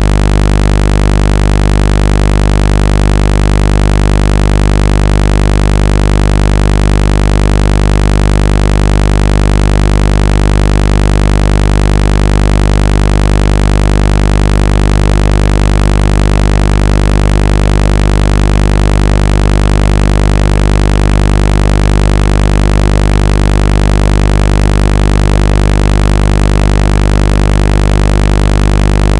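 Loud, steady, low-pitched electronic buzzing tone with many overtones, holding unchanged throughout. It is a phone-speaker water-eject tone, played so the speaker vibrates water and dust out of its grille.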